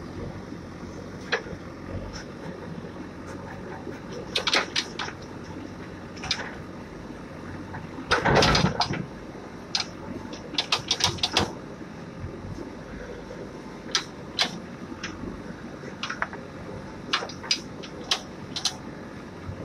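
JCB backhoe loader working: its diesel engine runs steadily underneath while the bucket digs into soil and roots, giving sharp clicks and knocks scattered throughout and one louder scraping noise lasting about a second near the middle.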